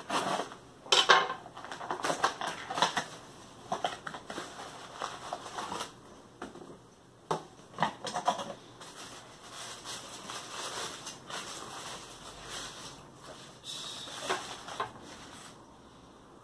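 A cardboard takeout box being cut open with a knife and handled, then a foil-wrapped sandwich being unwrapped. Irregular crinkling, rustling and sharp crackles, loudest in the first couple of seconds.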